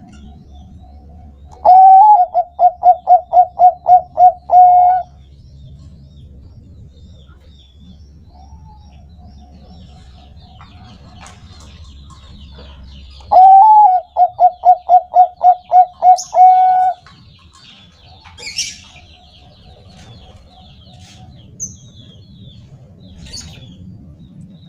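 Bangkok-bred zebra dove (perkutut) singing its song twice, each a quick run of about ten clear coos ending in a longer held note. Softer drawn-out coos sound between the two songs.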